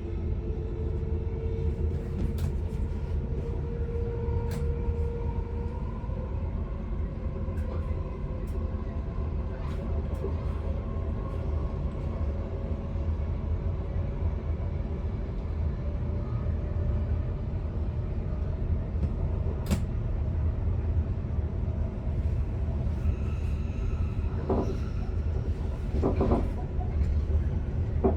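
Stockholm commuter train running on the line, heard from the driver's cab: a steady low rumble of wheels on rail with a faint motor whine that rises slowly over the first half. A few sharp clicks, and a couple of louder knocks near the end.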